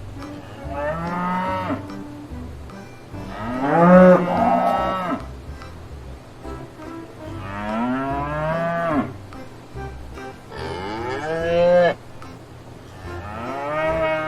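Cattle mooing: five drawn-out moos, each over a second long and rising then falling in pitch, about three seconds apart.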